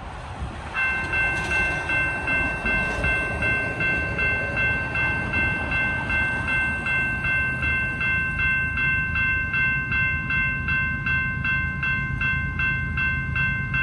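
Railroad crossing warning bell starting about a second in and ringing in a fast, even rhythm of roughly two to three strokes a second, signalling an approaching train as the crossing gates come down. A low rumble sits underneath.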